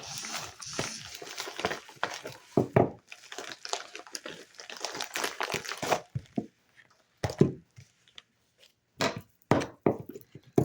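Packaging crinkling and rustling as a parcel of soap bars is unpacked by hand, then four separate dull thunks in the last few seconds.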